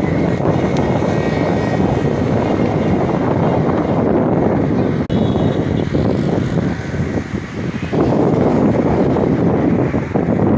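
Wind blowing on the microphone, a loud, steady low rumble that eases briefly about seven seconds in.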